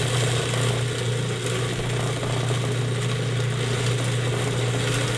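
Electric food processor motor running steadily with a low hum, chopping and blending a thick chickpea and herb mixture.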